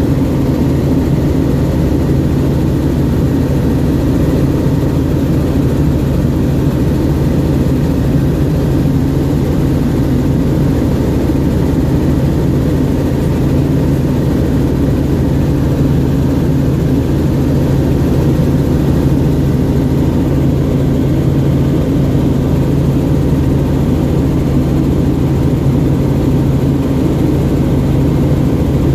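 Helicopter engine and rotor noise heard from inside the cabin: a steady low drone with a constant hum, unchanging in flight.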